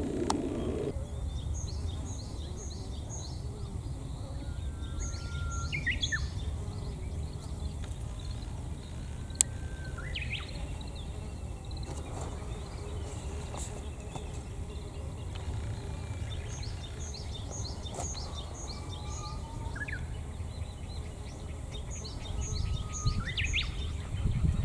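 Wild songbirds singing over a steady low background rumble: four times a whistled song with a held note that ends in a quick upward flourish, between runs of short high repeated notes. A single sharp click about nine seconds in.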